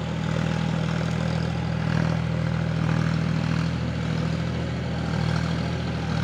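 John Deere 5050D tractor's three-cylinder diesel running steadily under load in low-range third gear, pulling a rotary tiller through a flooded paddy field, with water churning around the wheels and tiller.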